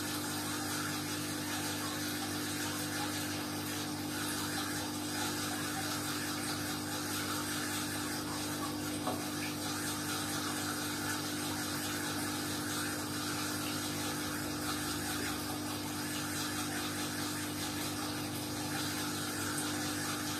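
Aquarium's submersible pump running with a steady electric hum and a faint hiss, with one small click about nine seconds in.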